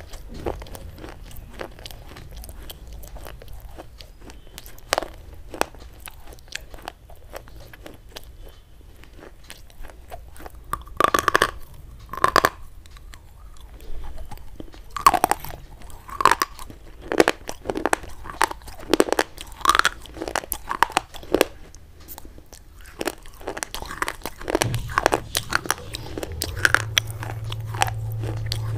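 Close-miked biting and chewing of brittle white chalk-like sticks: a run of sharp crunches and crackly chews, louder and busier from about a third of the way in.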